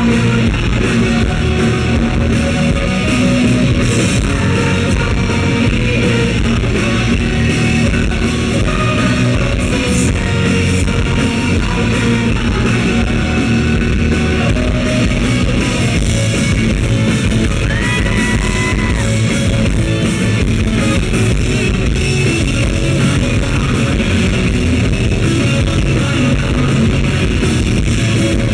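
Rock band playing live, led by loud electric guitars over bass and drums.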